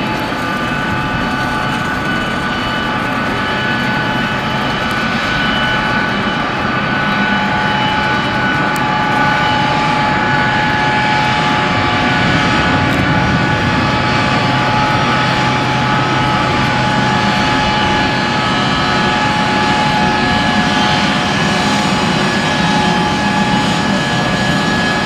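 A US Air Force C-32A (Boeing 757) taxiing, its two Pratt & Whitney PW2040 turbofans running at taxi power. The sound is a steady jet whine of several held tones over a rumble, growing slightly louder about nine seconds in.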